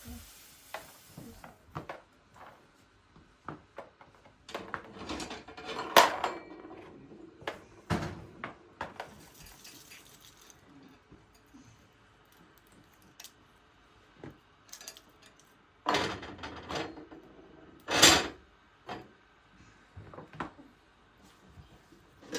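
Dishes and cutlery clinking and knocking on a table, irregular sharp knocks with louder clusters about six and eighteen seconds in.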